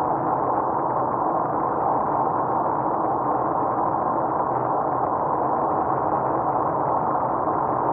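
Steady road and engine noise inside a car cruising at highway speed, as picked up by a dashcam: a constant rushing hum that does not change.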